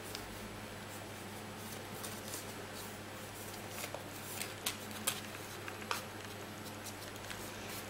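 A sheet of paper being handled and folded by hand: soft rustling with a few sharper crinkles about four to six seconds in, over a steady low hum.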